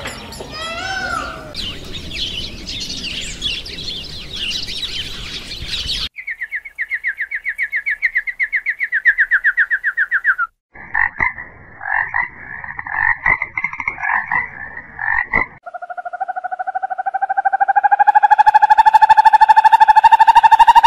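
A run of separate animal calls, mostly frogs: high bird-like chirping first, then a fast pulsed trill, then choppy croaking calls, and finally one long trill that rises slightly in pitch.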